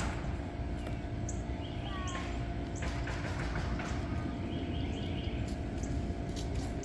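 A steady low rumble with a constant engine-like hum, as from a running vehicle, with a few faint short bird chirps over it.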